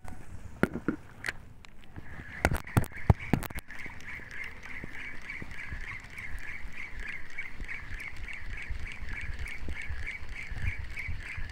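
A Mavllos Greek 1000 spinning reel being cranked to retrieve a lure: a steady, rhythmic squeaky whir that pulses about three or four times a second, starting about two seconds in after a few sharp handling clicks.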